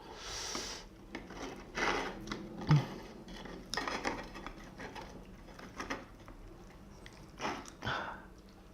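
Scallop shells and utensils clinking and scraping against a dish in a series of separate short sounds as a saucy steamed scallop is picked out to eat.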